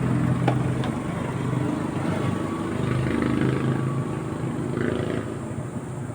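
A small engine running steadily, its pitch wavering slightly, with two light clicks about half a second in.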